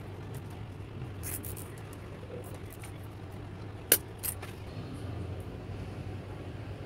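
Small clicks and handling noises from headlight wiring and plastic connectors being worked by hand, with one sharp click just under four seconds in and a smaller one right after, over a steady low rumble in the background.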